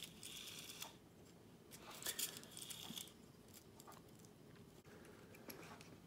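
Faint handling clicks and scrapes from a 1960 Princess phone's rotary dial mechanism, freshly loosened with silicone oil, as it is turned and handled: a few short clicks about one second and two to three seconds in.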